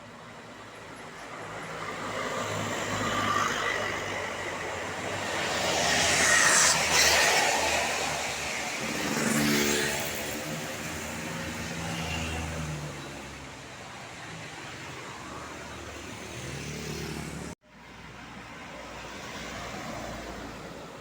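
A tour bus passing on the road, its engine and tyre noise building to loudest about six to seven seconds in and then fading, with the engine's pitch rising and falling as it pulls away. The sound cuts off suddenly near the end, then lighter traffic noise continues.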